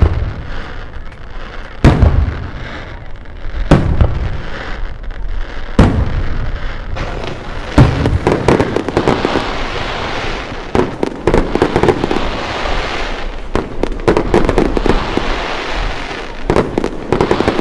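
Aerial fireworks display: heavy shell bursts about every two seconds, then from about seven seconds in a dense run of rapid bangs and crackles.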